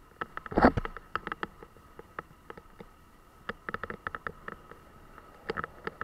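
Leather motorcycle gloves being pulled on and their wrist straps fastened right at the microphone: scattered clicks, scuffs and rustles, loudest in a short rasp about half a second in, over a faint steady whine.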